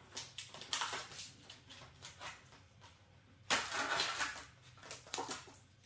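Plastic packaging crinkling and rustling in several short bursts as the lid is pulled off a foil tray, the loudest burst about halfway through.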